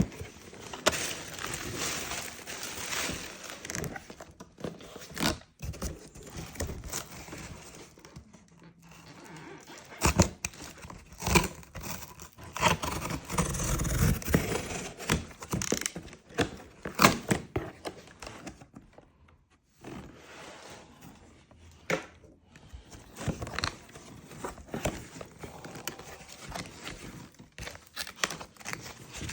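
Packaging crinkling and rustling as a motorcycle helmet is unboxed, with scattered sharp clicks and knocks from handling. There is a brief lull a little past halfway.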